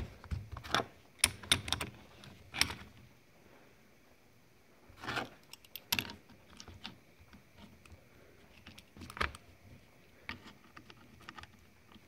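Adjustable wrench clinking and clicking against a steel quick-connect air plug as the plug is loosened from an impact wrench's air inlet: irregular sharp metal clicks.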